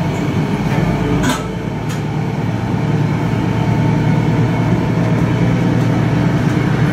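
KiHa 110 diesel railcar's engine running under power as the train pulls away slowly, a steady drone heard from inside the car that grows louder about two seconds in. A single sharp click comes about a second in.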